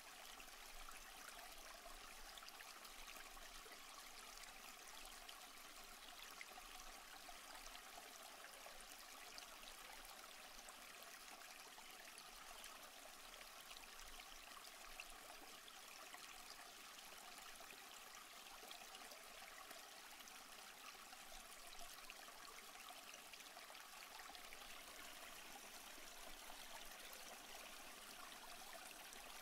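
Near silence: a faint, steady hiss of room tone and recording noise.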